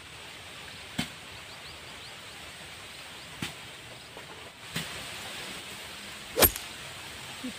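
Steady outdoor hiss with a few soft clicks, and one sharp click about six and a half seconds in.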